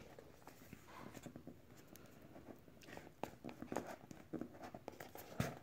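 Faint rustling, scraping and light taps of a cardboard smartphone box being opened and handled, with a sharper knock about five seconds in.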